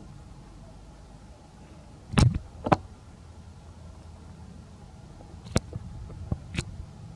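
Baby macaque eating a piece of soft fruit close to the microphone: a few sharp clicks and smacks, the loudest two about two seconds in and half a second apart, with a few fainter ones near the end, over a low steady rumble.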